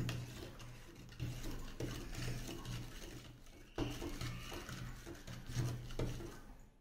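A metal spoon stirring baking soda into water in a plastic jug: faint swishing and scraping, with a few light clicks of the spoon against the jug.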